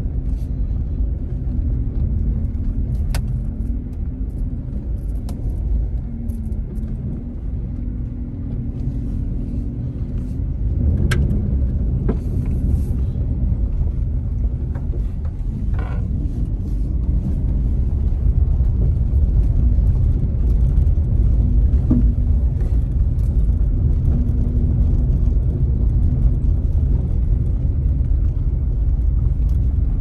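Car driving slowly over a freshly laid gravel road that is not yet packed down, heard from inside the cabin: a steady low rumble of engine and tyres with a wavering engine hum and scattered clicks and knocks. It grows louder about ten seconds in and again near twenty.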